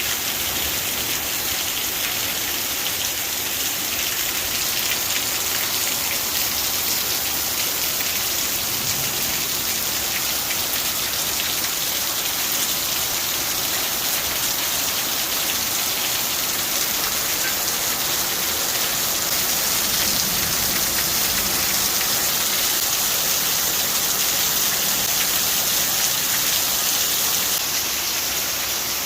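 Heavy rain falling steadily from a thunderstorm: a dense, even patter of drops on surfaces.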